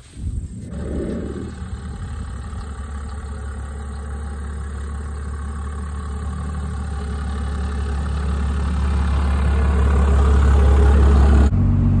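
Diesel engine of a Dodge Ram pickup, the 12-valve Cummins, running with a steady low hum that grows steadily louder as the truck drives closer. Near the end it switches abruptly to the engine heard from inside the cab.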